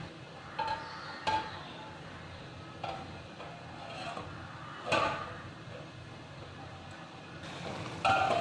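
Stainless steel pots and pans knocking and clinking against each other as they are handled, about five separate metallic knocks with a short ring, the loudest about five seconds in and near the end.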